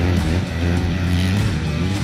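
Background music with guitar, with motocross bike engines running on the track under it.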